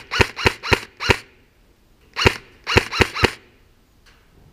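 Airsoft replica firing nine single shots in two volleys: five in about a second, then, after a pause of about a second, four more.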